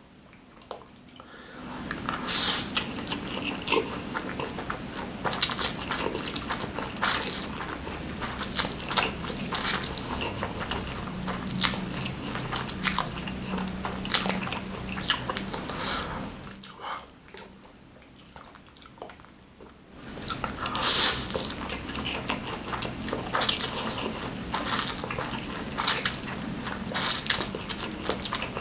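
Close-miked eating of very spicy Mie Abang Adek noodles: wet chewing, smacking and biting in two stretches, with a pause of a few seconds about two thirds of the way in.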